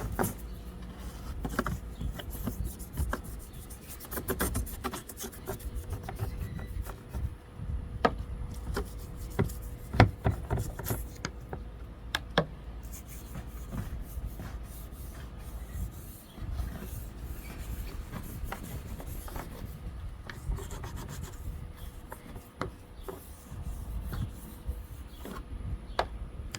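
Old toothbrush scrubbing the plastic windshield trim panel where a rotted rubber seal was cut away: continuous scratchy rubbing with scattered small clicks and a sharper knock about ten seconds in.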